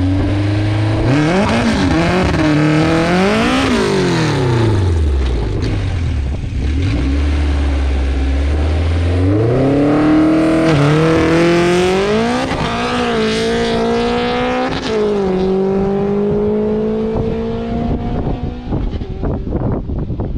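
A car engine revved up and down twice, settling to a steady low note, then accelerating hard with three quick upshifts before holding a steady speed. Near the end the engine note fades into scattered clatter and noise.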